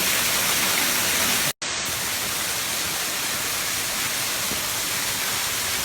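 Steady rushing of water falling over a spillway, a dense even hiss. The sound cuts out completely for an instant about one and a half seconds in.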